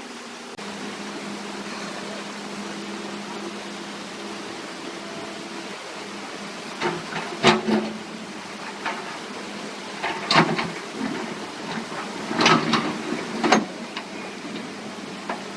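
Excavator's diesel engine running steadily, with several loud knocks from the machine at work: one about halfway through, another a few seconds later, and a cluster near the end.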